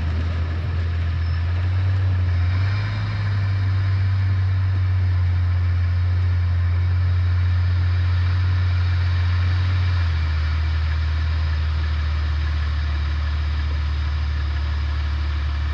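4x4 vehicle driving slowly: a steady low engine drone over road and tyre hiss, dropping a little in pitch about ten seconds in.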